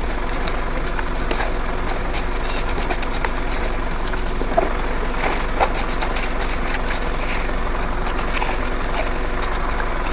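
Engine running steadily with a low hum, with scattered small clicks and two sharper knocks about four and a half and five and a half seconds in.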